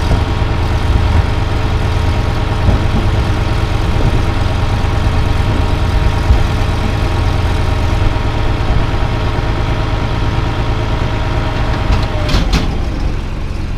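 Cat D3C bulldozer's diesel engine running steadily, heard from inside the cab, as the dozer moves forward onto a truck deck. Near the end the engine note drops.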